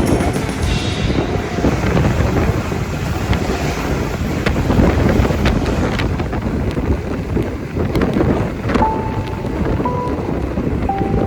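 Wind buffeting the microphone over the steady running noise of a moving passenger train.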